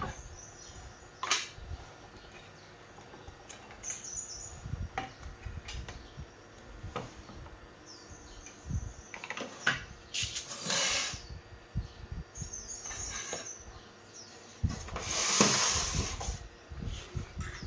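Small birds chirping now and then in the background, among scattered clicks and knocks. There are two louder bursts of hiss, one about ten seconds in and a longer one about fifteen seconds in.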